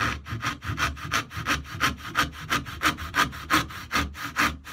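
A freshly resharpened antique Thomas Sorby brass-backed dovetail saw cutting into a piece of wood in quick, even rasping strokes, about five a second. The cut is a test of the new sharpening, and it cuts well.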